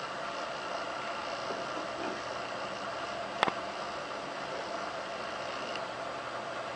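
Steady background hiss with one short, sharp click about halfway through.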